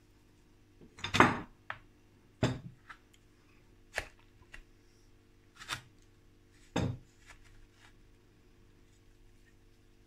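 Pieces of dragon stone (Ohko rock) being handled and set into dry sand: about six short knocks and gritty scrapes over the first seven seconds, the loudest about a second in, then quieter handling.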